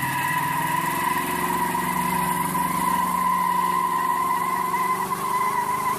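Pontiac Firebird doing a burnout: the engine is held at high revs while the spinning rear tyres squeal in a steady, high-pitched whine.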